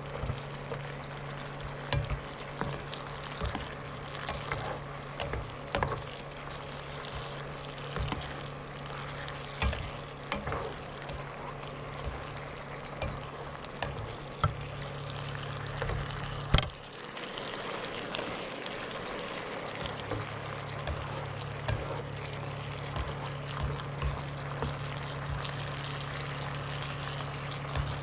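Tilapia fillets simmering and sizzling in a sweet Coke sauce in a nonstick frying pan, with a plastic spatula tapping and scraping the pan as the sauce is spooned over the fish. A steady low hum runs underneath and cuts out for a few seconds after a sharp click about two-thirds of the way through.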